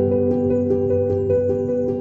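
Instrumental background music: a held low chord with a string of short, higher notes over it.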